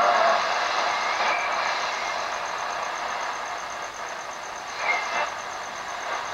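Static and hiss from a Sonatec PRI-037U portable multiband radio as its tuning knob is turned across the AM band, with brief whistles and snatches of station signal breaking through, the clearest just under five seconds in. The noisy, broken sound is the sign of poor AM reception.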